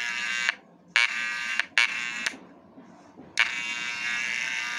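Electromagnetic (vibrator-type) hair clipper buzzing with its blades off and housing open, being test-run after its internal moving piece was adjusted to cure an abnormal noise. The steady buzz cuts out three times and restarts.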